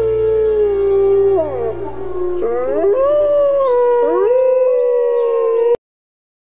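Wolves howling: a long howl that dips in pitch, joined by other howls rising in pitch about two and a half and four seconds in, cutting off abruptly near the end.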